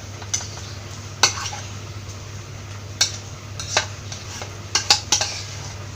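A spoon knocking and scraping against a cooking pan as mashed boiled potato is spooned into the beef and onion filling, giving about seven sharp clinks spread through, over a steady low hum.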